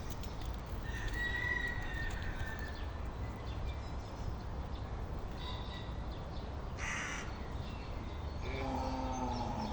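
A few short animal calls over a steady low rumble: a high call about a second in, a brief harsh call about seven seconds in, and a lower pitched call near the end.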